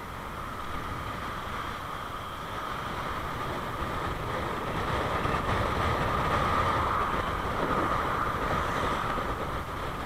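Wind rushing over the microphone of a camera on a moving bicycle, with tyre noise on tarmac, swelling louder in the middle.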